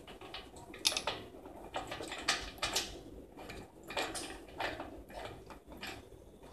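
Nuts being screwed down by hand on the lid bolts of a steam autoclave, metal turning on metal in short, irregular bursts of scraping.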